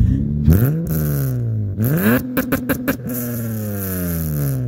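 Honda Accord coupe's engine revved hard through a single exhaust with no catalytic converters or resonator, only a Vibrant muffler: two quick rising blips, then a third rev held at the top, stuttering on the rev limiter for about a second, before the revs fall back toward idle.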